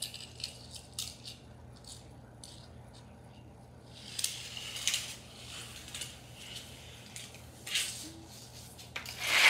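Light plastic clicks and rattles from a Hot Wheels toy track and cars being handled, with a louder clatter near the end.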